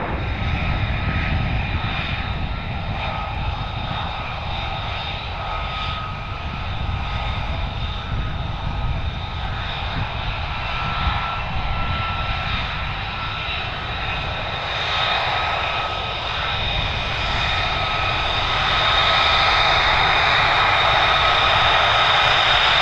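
F-35A Lightning II's single Pratt & Whitney F135 jet engine at taxi power: a steady high whine over a low rumble, growing louder near the end.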